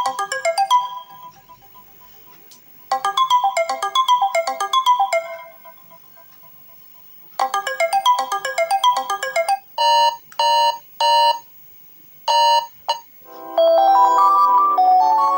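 Doogee X10 smartphone ringtones playing: a fast rippling run of electronic notes that repeats about every four and a half seconds, then groups of short clipped beeps, and near the end a different tune with longer held notes begins.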